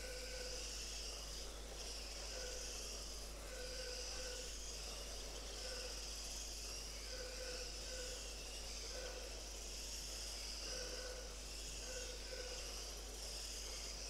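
Small electric radio-controlled racing cars running laps on an indoor carpet track, their motors making a high, wavering whine that swells and fades as they pass. Short electronic beeps sound at irregular intervals, typical of a lap-counting system as cars cross the timing line.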